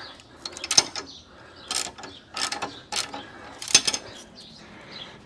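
Motorcycle jack being let down a little: about five short bursts of metallic ratcheting clicks.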